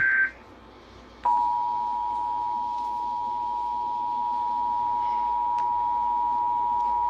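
The last burst of an Emergency Alert System SAME header, a warbling digital data tone, cuts off just after the start. About a second later the EAS attention signal begins: two steady tones of 853 and 960 Hz sounding together and held unbroken, which announces an alert message.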